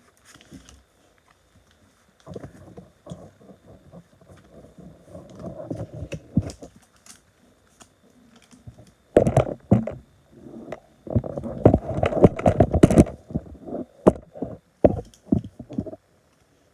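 Close handling noise: scattered rustling, taps and clicks, with a dense run of louder knocks and thumps from about nine to thirteen seconds in.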